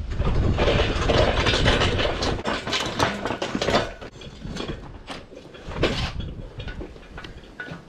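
Metal clanking and rattling with a low rumble as a workshop engine hoist is wheeled about and set up. It is busiest and loudest for the first four seconds, then thins to scattered knocks.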